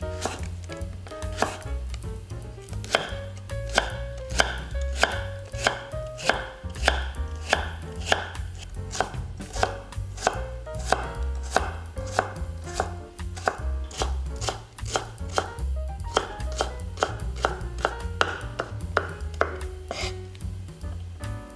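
Knife chopping vegetables on a cutting board, in a steady run of sharp cuts at about two to three a second.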